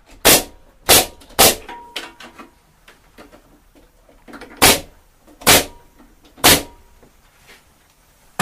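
Pneumatic stapler driving 38 mm, 16-gauge staples into the corner joints of a wooden hive box: three sharp shots in quick succession, a pause of about three seconds, then three more shots about a second apart.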